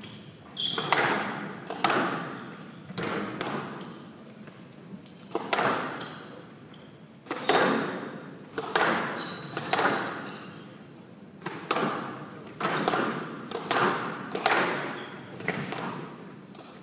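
Squash rally: sharp smacks of racket on ball and of the ball striking the court walls, irregularly about once a second, each ringing on in the hall. Short high squeaks of court shoes come in between.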